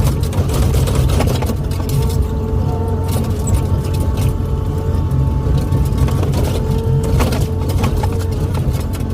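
Excavator's diesel engine running steadily under load, with a hydraulic whine that comes and goes and scattered knocks and clanks from the working machine.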